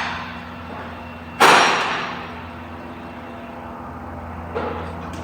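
A single sharp knock or clatter, like a tool or part set down on metal, about a second and a half in, ringing briefly, with a smaller knock near the end, over a steady low hum.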